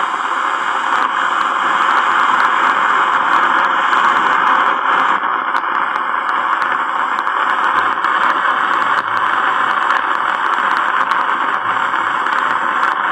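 Steady, loud hiss with faint scattered crackle clicks: the background noise of an old black-and-white film's worn soundtrack, with nothing else rising above it.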